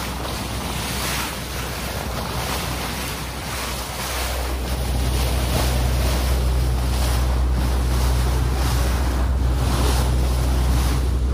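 Water rushing and splashing along the hull of a moving fishing boat, with wind buffeting the microphone. A steady low engine drone under it grows louder about four seconds in.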